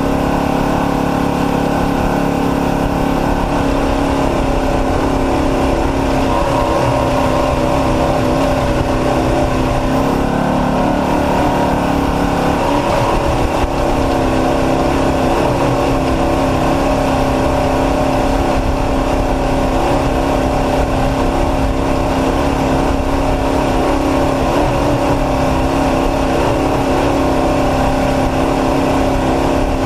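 Off-road race truck's engine running hard under load. Its pitch rises and falls with the throttle, with a dip about ten seconds in before it climbs again.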